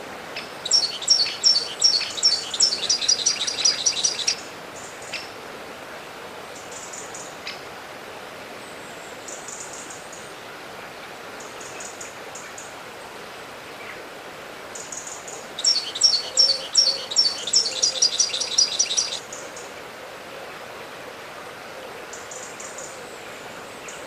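Songbird singing two bouts of rapid, repeated high chirping notes, one starting about a second in and one a little past the middle, each lasting about three and a half seconds, with a few short calls between them over a steady background hiss.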